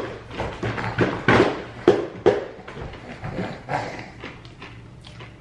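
Close-up chewing of crunchy fried chicken: irregular crunches and wet mouth sounds, loudest in the first two and a half seconds, then fading to softer chewing.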